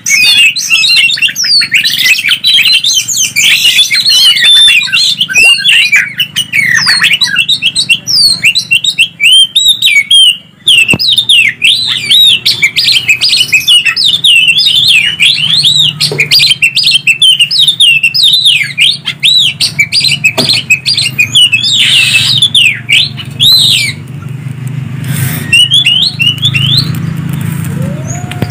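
Oriental magpie-robin and green leafbird singing in quick succession: a dense, unbroken stream of rapid chirps and whistles over a faint low hum.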